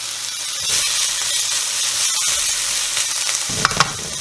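Diced onion and bell peppers sizzling in a hot nonstick wok as they are stirred around, a steady frying hiss, with a couple of sharp clicks from the utensil against the pan near the end.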